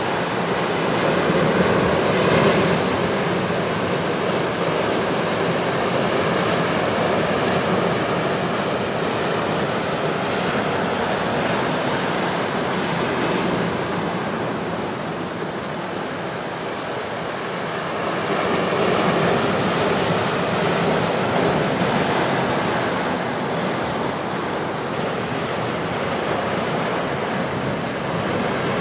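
Ocean surf breaking and washing over rocks, a continuous rush that swells and ebbs with the waves, with a lull about halfway through before the next wave comes in louder.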